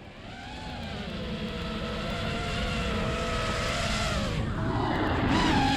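FPV quadcopter's motors and propellers whining, the pitch drifting with the throttle and shifting about four and a half seconds in, over a low rumble of wind noise; the sound fades in at the start.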